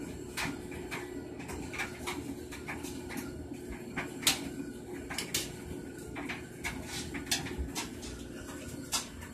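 Aquarium air pump and bubbler running with a steady low hum, overlaid by irregular sharp clicks and pops, about one or two a second.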